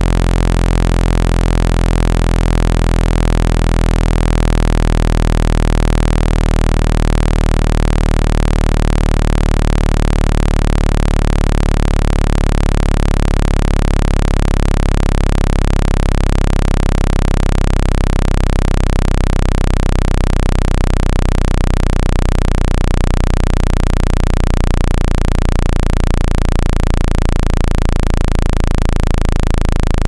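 Loud, steady synthesized low-pitched drone made of many overlapping tones, the deepest the strongest: a water-eject sound meant to shake water out of a phone's charging port. A fast pulsing wobble enters the low end about two-thirds of the way through.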